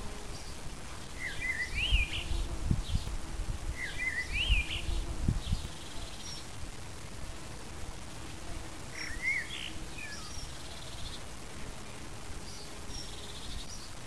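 A common blackbird singing unhurried, fluting phrases, three of them with thin higher twitters between, over the faint steady hum of a bumblebee. Low rumbling bumps in the first half are the loudest thing.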